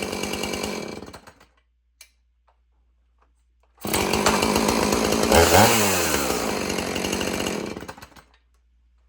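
Two-stroke chainsaw running, then dying down and shutting off about a second in. After a few seconds of quiet it is running again from a sudden start, revs up and back down once near the middle, and winds down to a stop near the end.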